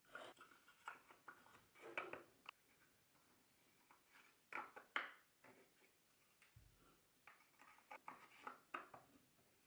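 Small wooden drawers being pushed into a miniature wooden chest by hand: scattered light clicks and taps of wood on wood. The loudest knocks come about two seconds in and around five seconds in.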